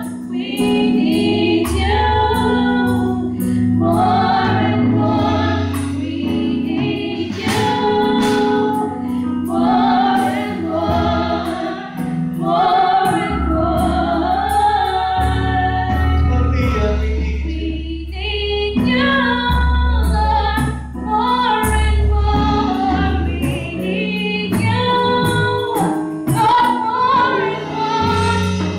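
Female gospel vocal group singing in harmony into microphones, over an accompaniment of sustained low bass notes and regular sharp beats.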